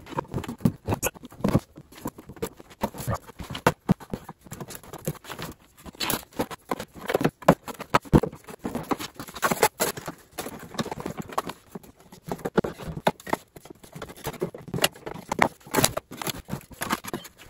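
Plastic push-pin rivets being pried out of a car's plastic wheel-well liner with a small trim popper tool: a run of irregular clicks, snaps and knocks of the tool against the plastic.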